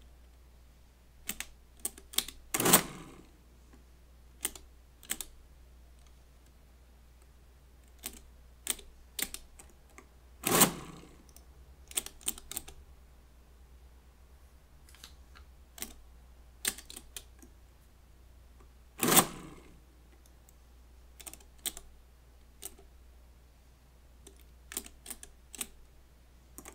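Friden STW10 electric mechanical calculator: scattered clicks of digit keys being set on its full keyboard. Three times, about eight seconds apart, a louder short clatter is heard as the machine runs a brief adding cycle and the total on the accumulator grows.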